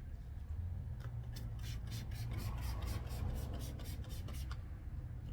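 A car's plastic headlight lens being hand-sanded with very fine sandpaper in quick back-and-forth strokes. This is the first stage of a headlight restoration: the hazy, oxidised surface is cut back before buffing.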